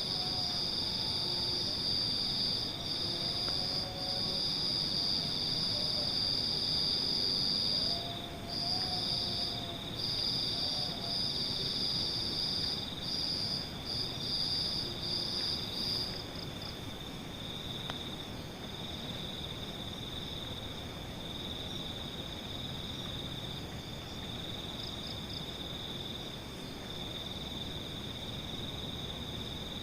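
Night insects, crickets, trilling in a steady chorus of two high tones. The higher-pitched one falters in short stops and goes quiet about halfway through, while the lower one keeps on.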